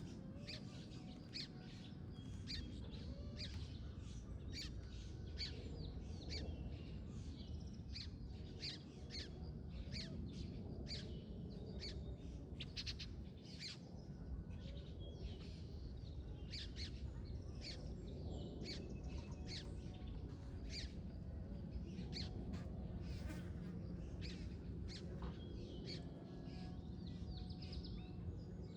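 Wild birds chirping: many short, high chirps, roughly one or two a second, over a steady low background rumble.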